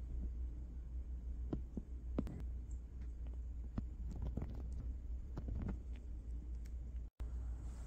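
Prairie dog digging and burrowing into a fleece blanket: irregular soft scratches and rustles of fabric over a steady low rumble. The sound cuts out for a split second near the end.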